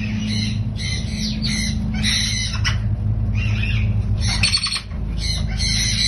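Caged parrots giving a run of short, harsh squawks over a steady low hum.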